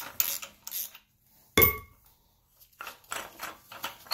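Metal tools clinking and rattling as the crankshaft bolt is backed off the BMW front crankshaft seal installer by hand. One sharp metallic clink rings out about a second and a half in, then a run of light rattling clicks follows.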